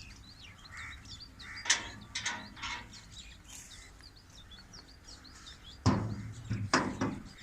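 Small birds chirping steadily in the background, with a few scattered knocks and a run of louder knocks and thuds near the end.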